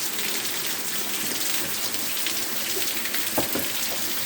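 Steady rain falling and pattering on surfaces, an even hiss, with one brief tap about three and a half seconds in.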